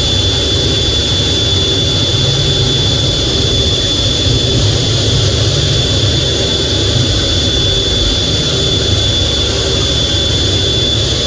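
F/A-18's twin jet engines running steadily, heard from inside the cockpit while the jet taxis on the carrier deck: a steady high whine over a low rumble.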